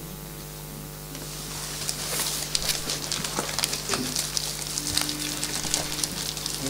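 Choir singers opening their paper music folders and shuffling sheets, a dense run of crisp rustles and clicks. About five seconds in a single note is held for about a second and a half, the starting pitch before the choir sings.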